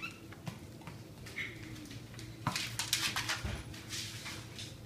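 A dog's claws clicking and scrabbling on a wooden parquet floor, a quick run of sharp clicks about halfway through, with one dull thump among them.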